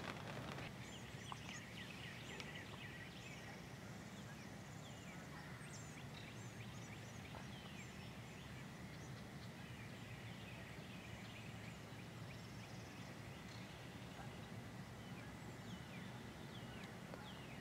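Faint wild turkeys calling, gobbling among them, over a steady low outdoor hum, with short high chirps scattered throughout.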